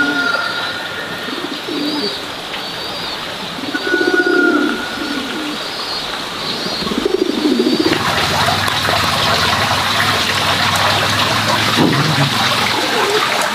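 Domestic pigeons cooing in low, repeated phrases every couple of seconds, with thin higher bird chirps. About eight seconds in, a steady hissing noise takes over.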